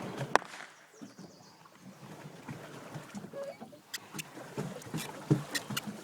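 Paddling a small boat: water sloshing, with a series of sharp knocks and clicks. The loudest come about a third of a second in and a little before the end.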